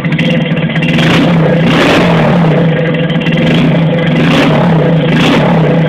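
Engine running through a gutted aluminium RS exhaust muffler with nothing inside, giving a loud, open exhaust note. It idles with a steady hum, and the throttle is blipped into short revs several times.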